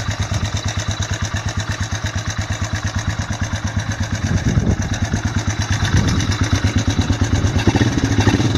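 Suzuki engine of a Chinese 250cc liquid-cooled ATV idling with an even, rapid beat and a little rattle, which the owner thinks may call for a valve adjustment. It gets slightly louder about six seconds in.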